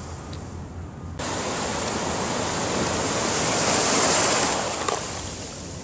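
Ocean surf on a sandy beach: the hiss of a wave washing in, starting abruptly about a second in, swelling to a peak and then easing off.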